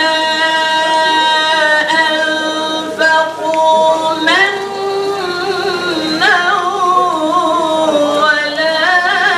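A man's voice chanting Quran recitation in melodic tajwid style, drawing out long held notes. About four seconds in the pitch rises into wavering, ornamented turns, and it climbs again near the end.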